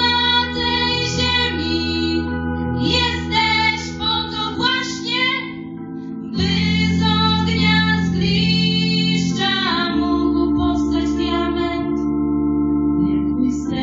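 Two young women singing together into microphones through a PA, in phrases of a few seconds with short breaths between, over held accompaniment chords.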